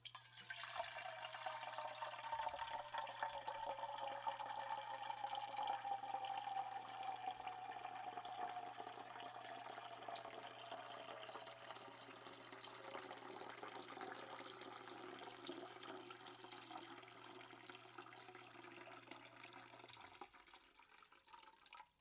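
Water running from a tap and splashing into a sink or basin, with a ringing tone in the splash that slowly falls in pitch as it goes on. It grows quieter towards the end.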